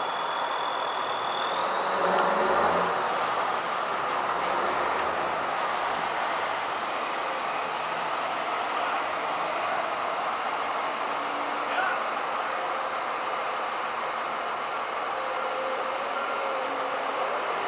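Steady street traffic noise from trucks and cars, with a thin high whine that climbs sharply about two seconds in and then slowly glides back down.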